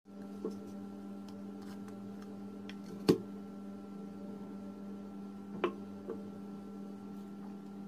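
A steady low hum, with a few sharp clicks and knocks of small ceramic bowls and a glass plate being handled. The loudest knock comes about three seconds in and a second one near five and a half seconds.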